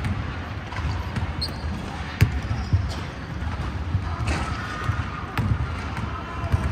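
Basketballs bouncing on a hardwood gym floor: irregular dull thuds, with a sharper knock about two seconds in.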